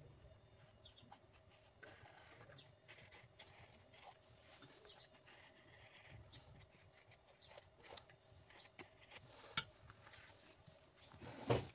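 Faint clicks, taps and rubbing of small hand work on a loudspeaker, over a faint steady hum. There is a sharper knock late on and a louder one near the end.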